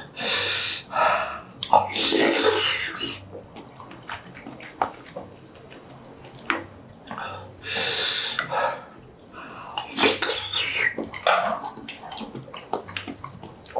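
A man breathing hard, hissing and blowing out air in several sharp bursts against the burn of very spicy pig's feet (bul jokbal), with chewing and a few light spoon clicks between.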